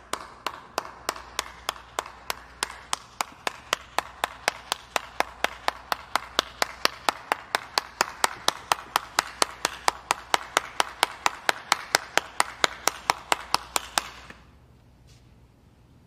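One person clapping steadily, about four claps a second, the claps growing louder and a little faster before stopping about fourteen seconds in.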